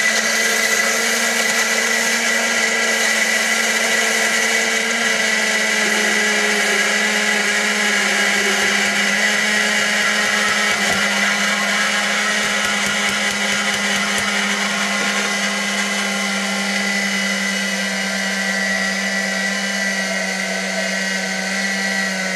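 Electric blender running steadily at one speed: a constant motor hum and whine.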